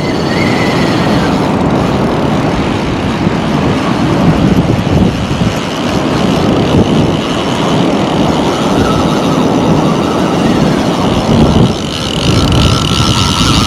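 Loud, steady rush of wind buffeting the microphone on an open shore, with a faint thin high tone coming in near the end.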